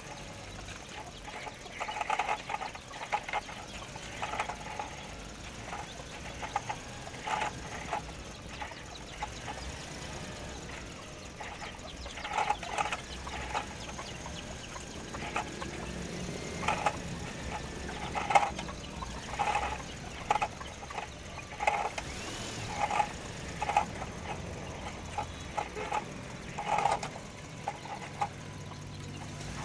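Chickens clucking in short, irregular calls every second or two, over the faint whir of a toy RC truck's small electric motor as it drives off.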